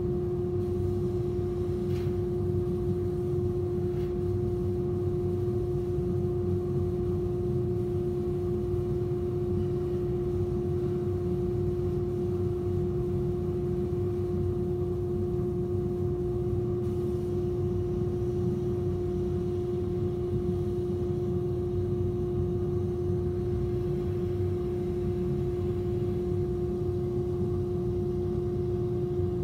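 130 W CO2 laser cutting machine running as it engraves and cuts MDF: a steady machine hum with one clear pitched tone over a low rumble, unchanging throughout.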